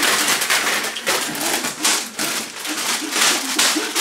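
Plastic candy bags crinkling and rustling as they are torn open and shaken out, the wrapped candies scattering, with brief low voice sounds mixed in.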